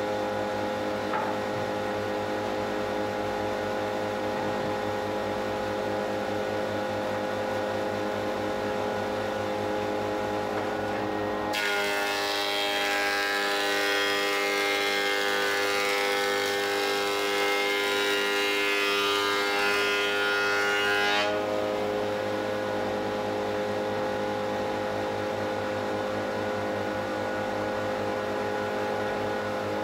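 Metabo HC 260 planer-thicknesser running steadily with a droning motor hum. About halfway in, a louder hissing cutting noise starts abruptly and runs for about ten seconds, then stops just as sharply, as a board is fed through and planed.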